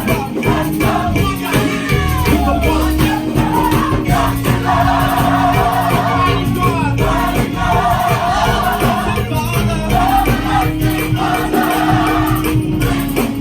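Gospel choir singing held, wavering notes over a live band with steady bass notes.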